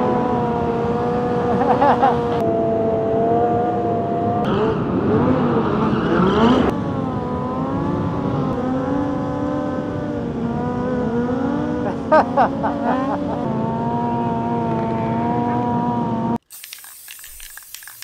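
Motorcycle engines revving and held at high revs across several abruptly cut clips, with a quick run of rising revs about twelve seconds in. The engine sound cuts off suddenly near the end, leaving something much quieter.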